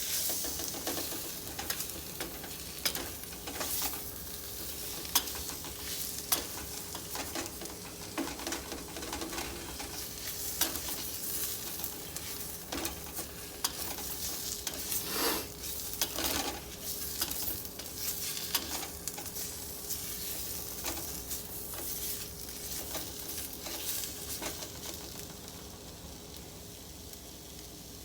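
Onions sizzling steadily in a pan as they caramelize, stirred with a utensil that scrapes and clicks against the pan now and then.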